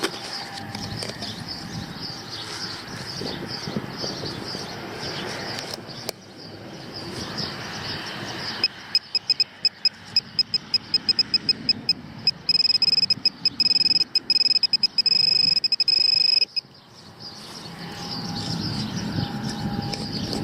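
Rustling and scraping in the dirt of a dig hole, then an XP MI-6 pinpointer beeping about halfway through, its beeps coming faster and merging into a steady high tone for about four seconds before it cuts off: the probe is closing in on, then sitting right on, the buried target.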